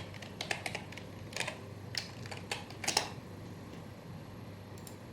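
Typing on a computer keyboard: a run of scattered keystroke clicks for about three seconds, then it stops.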